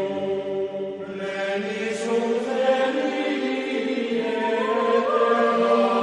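Background music: a chanted Buddhist mantra sung in long held notes.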